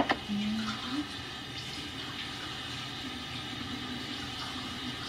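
Water running steadily from a kitchen tap, after a couple of sharp clicks at the start.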